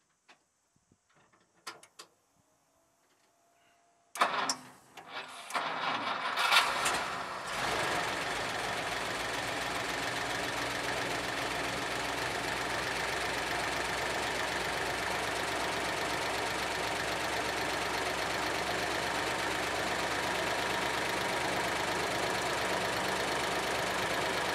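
Old four-cylinder engine fitted with new spark plugs, started from cold about four seconds in: a few seconds of uneven cranking and firing, then it settles into a steady idle. After a few faint clicks.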